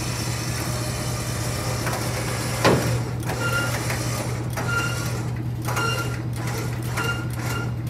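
A steady low mechanical hum, with a single sharp knock a little under three seconds in and short high chirps repeating through the second half.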